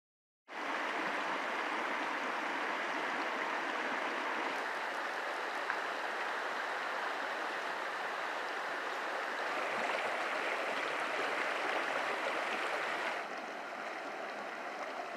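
Shallow mountain creek flowing over gravel and cobbles: a steady rush of water, a little quieter from about thirteen seconds in.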